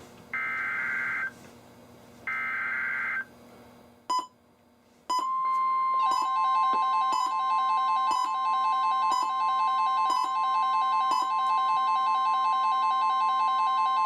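NOAA Weather Radio emergency alert signalling: two raspy SAME digital header bursts about two seconds apart. About five seconds in, the steady 1050 Hz warning alarm tone comes on and holds. From about a second later it is joined by a second alert tone that pulses about once a second, and both cut off sharply together near the end, announcing a new warning.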